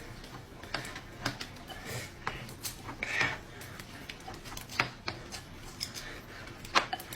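Someone eating rice noodles: irregular clicks and taps of chopsticks against a bowl, with a short noisier eating sound about three seconds in and a louder cluster of clicks near the end.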